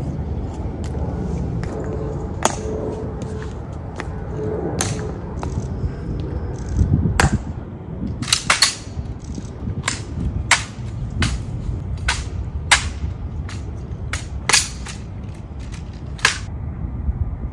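Sharp clicks and slaps of an honor guard's rifle drill in the changing of the guard: a few spaced clicks of heels and rifle at first, then a quick run of clicks and slaps from about halfway as the rifle is handled and inspected between two sentinels standing face to face.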